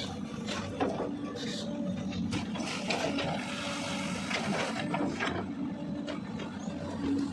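CAT 320D L long-arm excavator running steadily, with irregular knocks and scraping strokes as it works.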